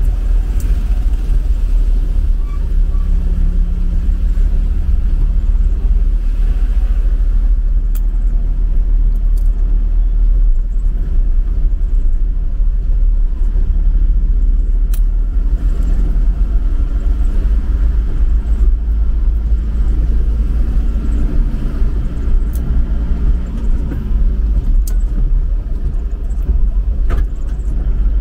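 Steady low rumble of an Isuzu Traviz light truck driving along a wet, flooded street, heard from inside the cab, with a few faint clicks.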